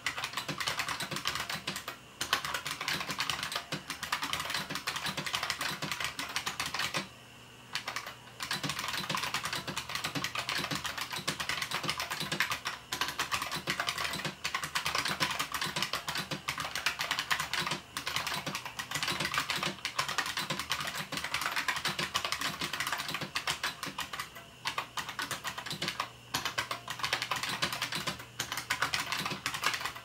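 Fast, continuous typing on a bolt-modded 1992 IBM Model M Space Saving Keyboard with buckling-spring switches: a dense clatter of key clicks with a few brief pauses, the longest about seven seconds in.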